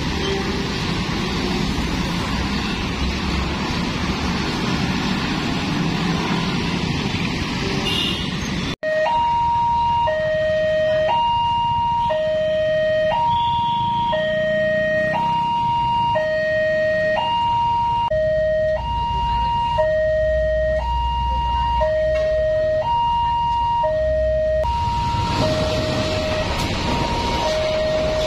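After about nine seconds of steady traffic noise, an automatic railway level-crossing alarm sounds a repeating two-tone warning, alternating a high and a low tone each under a second long, signalling an approaching train. Near the end the rumble of the passing train joins the alarm.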